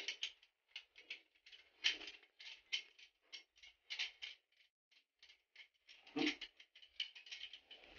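Faint, irregular clicks and scrapes of a hand wrench and PVC pipe fittings being handled while fittings are screwed onto a water pump.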